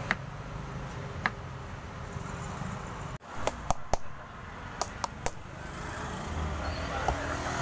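Large knife chopping into the husk of a young green coconut: sharp, short chops, two in the first couple of seconds, then a quick run of about six after a brief dropout midway, with one more near the end. A steady low rumble runs underneath.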